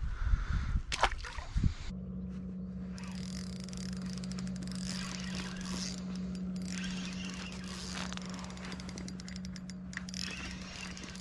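Knocks and handling on a kayak, then from about two seconds in a fishing reel cranked steadily: a constant gear whine with fast clicking over it as line is wound in.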